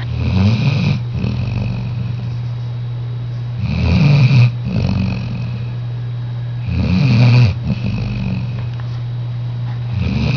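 A sleeping Labrador retriever snoring in a slow rhythm: a loud snore about every three seconds, each followed by a softer breath, over a steady low hum.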